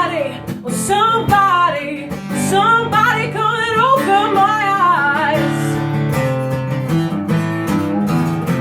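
A voice singing over strummed acoustic guitar; the singing stops about five seconds in and the guitar chords carry on alone.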